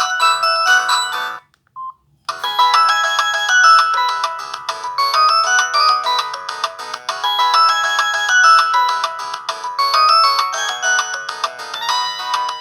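Polyphonic ringtones of a Samsung SGH-T459 Gravity phone: one melody cuts off about a second and a half in, a short single beep follows, then another ringtone starts, a busy tune of quick notes that plays on.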